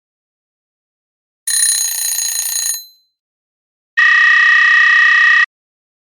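Two separate alarm sound effects. About a second and a half in comes a bright, metallic bell-like ring that lasts just over a second and fades away. About four seconds in comes a steady electronic buzzer tone that holds for a second and a half and cuts off suddenly.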